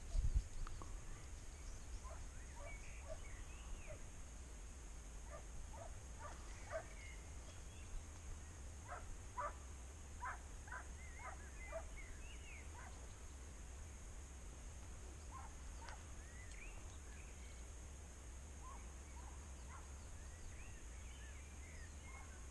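Hunting dog baying faintly on the chase after wild boar: a run of short barks, quickest at about two a second in the middle stretch, then dropping away. Thin bird chirps come and go.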